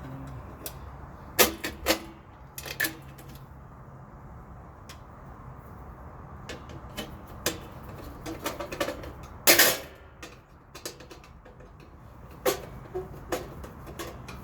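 Scattered sharp clicks and knocks of hands and tools working a homemade safety lock on an electrical panel board as it is adjusted looser, with the loudest clatter about nine and a half seconds in and a run of lighter clicks near the end.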